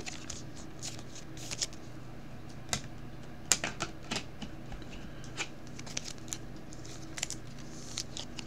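Football trading cards and a plastic card sleeve being handled, with irregular small clicks and rustles over a low steady hum.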